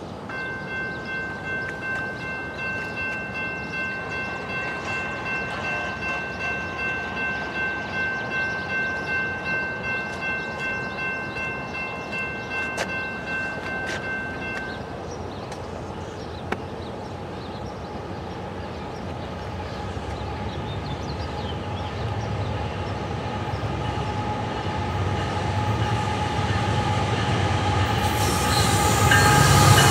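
A railroad crossing bell rings in a steady pulse for about fifteen seconds, then stops. A Norfolk Southern freight train led by GE ET44AC diesel locomotives approaches, its rumble growing louder and turning into a loud rush of engines and wheels near the end.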